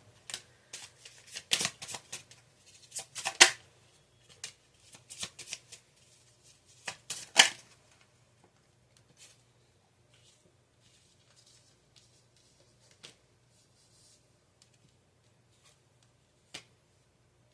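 Tarot cards being shuffled and handled: a run of quick papery snaps and slaps for the first several seconds, the loudest about three and a half and seven and a half seconds in, then only a few faint ticks.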